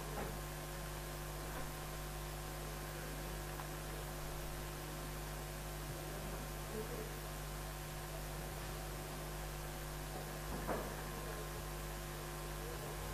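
Steady electrical mains hum from the sound system, with faint room noise and a brief soft sound about ten and a half seconds in.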